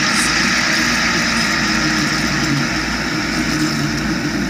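A plastic three-lobed fidget spinner spinning on a wooden tabletop, giving a steady whirring hum.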